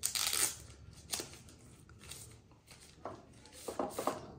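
Paper and plastic phone packaging being handled and peeled open: a loud rustle at the start, then a run of short crinkles and crackles over the last second and a half.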